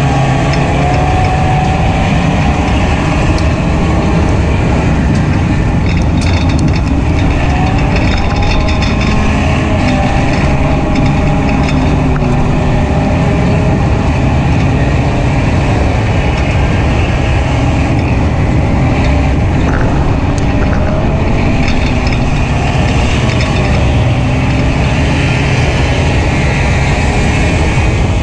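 Four-cylinder engine of a WISSOTA Hornet dirt-track race car running steadily, heard from inside the car, its pitch drifting slightly up and down with the throttle.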